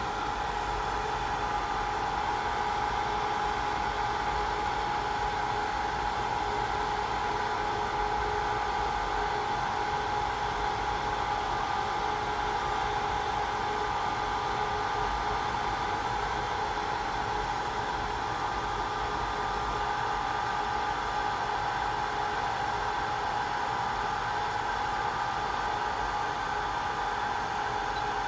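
Automatic BGA rework station (IC mounting machine) running its heating cycle: a steady rush of air from its hot-air heaters and fans, with a constant hum tone in it, while it steps through its set temperatures to melt the solder under a motherboard IC.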